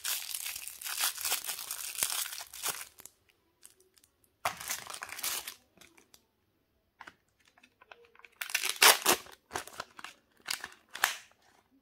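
Thin plastic toy wrapper crinkling and tearing as it is pulled open, in dense crackles for about three seconds and again briefly a little later. Near the end come several short, louder crackles of the Kinder Joy egg's foil seal being peeled back.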